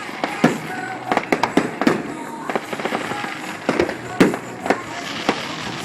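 Aerial fireworks going off: a fast, irregular run of sharp bangs and pops, with crackling between them.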